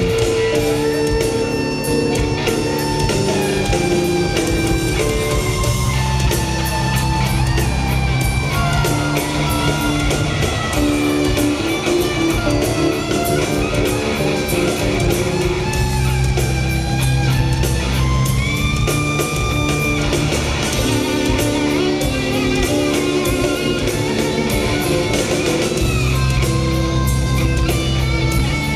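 A rock band playing an instrumental passage live, with electric guitar over bass and drums and no vocals, loud through an arena sound system.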